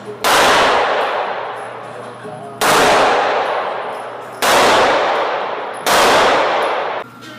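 Four handgun shots at uneven intervals, each one loud and sudden, followed by a long ringing decay.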